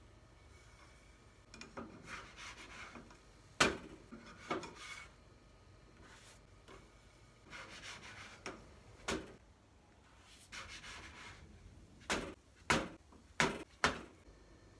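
A spatula scraping in a frying pan as hotcakes are loosened, flipped and lifted out. The scraping is broken by sharp knocks, four of them close together near the end.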